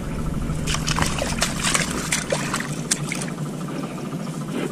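Hands digging into a waterlogged mud crab burrow: wet mud and water squelching and splashing in a run of short sloshes, thickest through the middle of the stretch.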